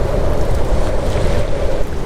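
Steady heavy rain with a deep continuous low rumble under it.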